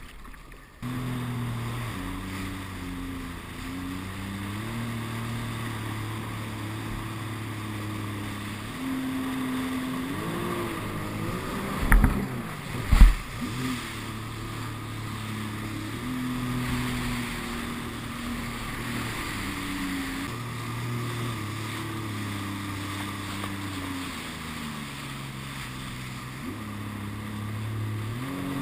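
Sea-Doo RXT 260iS jet ski's supercharged three-cylinder four-stroke engine comes in about a second in and runs under changing throttle, its pitch rising and falling, with water rushing past the hull. Two hard thumps about a second apart, near the middle, as the hull slams onto waves.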